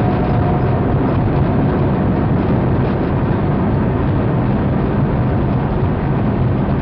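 Space Shuttle ascent heard inside the orbiter's crew cabin: a loud, steady, deep rumbling roar with rushing noise that holds even throughout.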